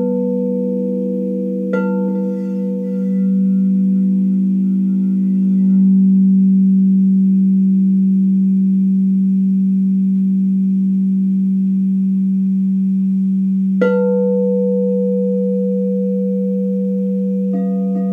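Frosted quartz crystal singing bowls ringing in long, overlapping sustained tones, the deepest hum the strongest. A bowl is struck with a mallet about two seconds in and again about fourteen seconds in, and the hum swells a few seconds in. A different bowl joins with higher tones near the end.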